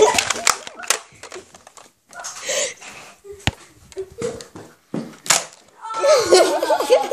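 Kids' voices, with a short burst of excited shouting or laughter near the end, over scattered sharp clicks and knocks from a Nerf blaster and a handheld camera being carried and bumped.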